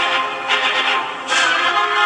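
Orchestral background music with held chords, shifting to new chords about half a second in and again just past a second in.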